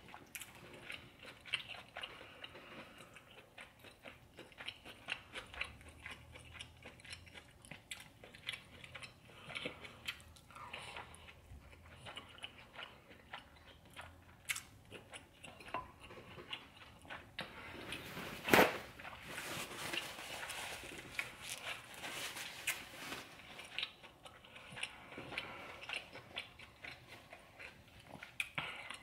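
A person chewing and biting seafood boil food, with many small wet clicks and smacks. One sharp knock or crunch about two-thirds of the way through is the loudest sound.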